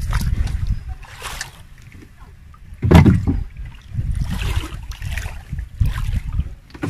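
Water sloshing and splashing around a small wooden outrigger canoe coming in over shallow water, with one loud thump about three seconds in.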